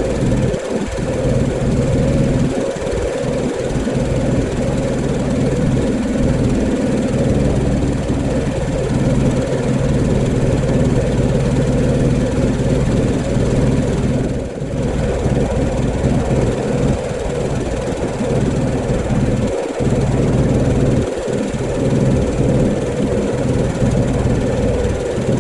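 Pressure washer running steadily, its engine drone under the hiss of the water spray. The spray hiss cuts out for a moment about halfway through.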